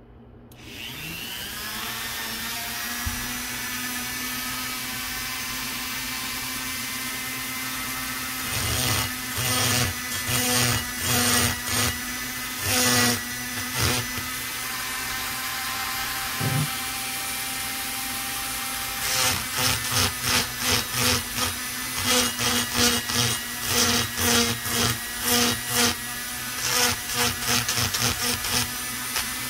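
A Dremel rotary tool on a flexible shaft starts about half a second in, its whine rising and then holding steady. From about nine seconds in, its egg-shaped burr bites into the intake port of an Echo CS-670 chainsaw cylinder in short, repeated grinding strokes, roughing the port surface, with the strokes coming thick and fast in the second half.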